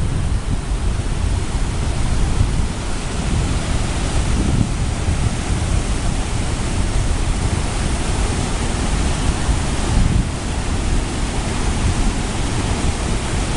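River rapids in unusually high water: a loud, steady roar of rushing whitewater.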